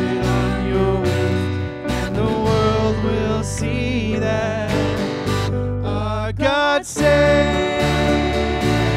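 Live worship band playing: strummed acoustic guitar over bass guitar and drums, with voices singing the melody in places.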